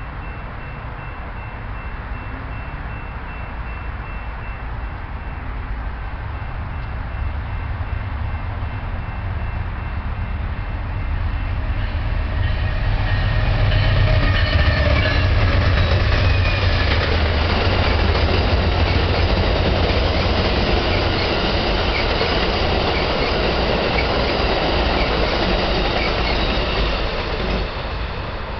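Amtrak Southwest Chief passenger train, led by GE Genesis diesel-electric locomotives, approaching and rolling past. The locomotives' low engine rumble builds to its loudest about halfway through, then gives way to a steady rush and clatter of the passenger cars' wheels on the rails, which drops away near the end.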